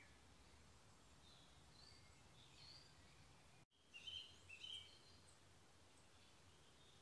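Faint songbird song: short high chirps and brief warbling phrases over a low steady background noise. The sound drops out for a moment just past halfway, then a louder run of song follows.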